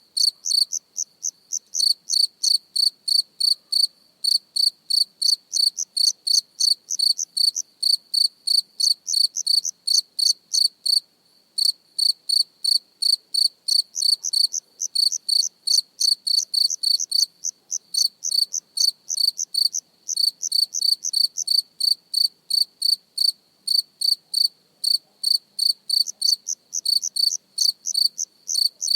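A cricket chirping close up: short, high, even chirps at about four a second, with a couple of brief pauses.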